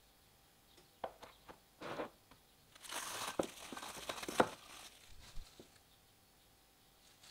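Plastic cling film crinkling as it is peeled off a glass of frothy yeast starter, with a few light clicks and knocks; the sharpest knock comes a little past four seconds in.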